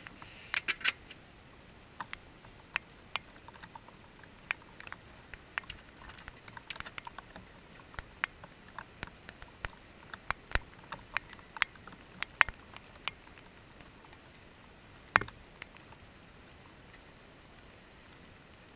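Raindrops tapping on a window pane in irregular, scattered ticks over a faint steady hiss. The drops come thick for the first dozen seconds, then thin out to only a few.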